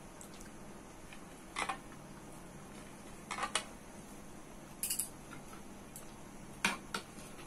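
Eating by hand: about five short clicks and squishes as fingers mix rice and curry on a plate and a spoon dips into the curry bowl.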